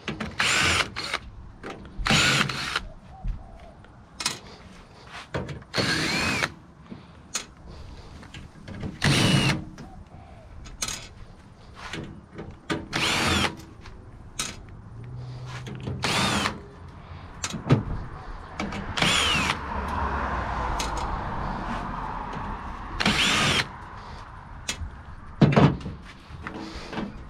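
Cordless drill-driver run in about a dozen short bursts, the motor pitch rising and falling with each one, as screws are backed out of a computer case. Knocks in between, and a longer scraping sound a little before the end.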